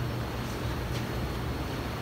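Steady low mechanical hum, with one faint tap about a second in.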